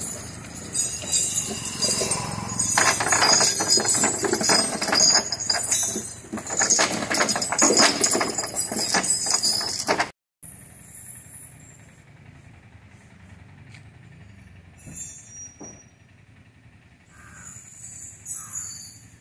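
Iron chain on an elephant's leg rattling and clanking as it is handled, loud and continuous for about ten seconds. It then breaks off to a much quieter background.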